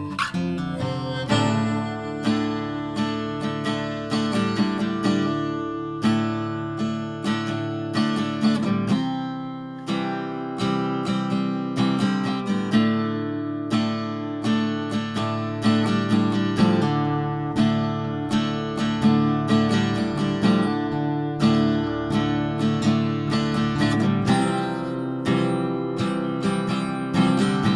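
Background music: an instrumental break of a folk song, acoustic guitar picked and strummed in a steady rhythm.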